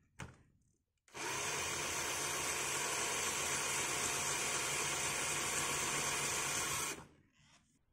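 Cordless drill running steadily for about six seconds, starting about a second in and stopping near the end, as it drills out the head of a stuck, corroded metal screw.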